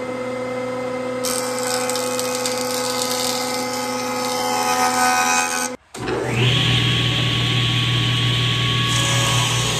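A jointer running, its cutterhead planing the rough-sawn edge of a black walnut board, with the hiss of cutting joining the machine's hum about a second in. After a sudden break near the middle, a table saw runs and begins ripping the walnut board.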